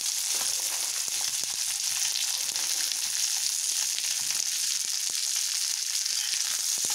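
Corn kernels sizzling in hot oil on a tawa as they are poured onto it: a steady frying hiss with scattered small crackles and ticks.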